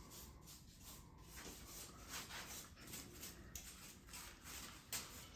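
Faint, irregular scrubbing strokes on a range hood's slatted metal grease filter, about one or two a second, with one sharper click near the end.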